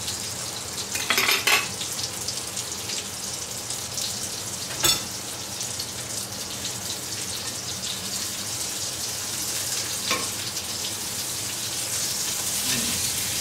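Schnitzels frying in a pan of clarified butter with a steady sizzle, and a few short clinks of a utensil against the pan as they are turned.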